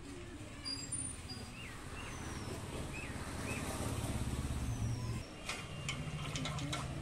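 A motor vehicle's engine running close by, a low rumble that builds to its loudest about four to five seconds in, dips briefly, then carries on. Birds chirp over it with a few short falling whistles.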